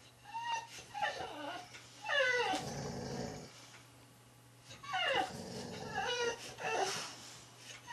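Boxer dog whining and growling in five short bouts, the whines sliding down in pitch, with a low growl under the longest bout about two to three seconds in. The dog wants the tennis ball that the other boxer holds.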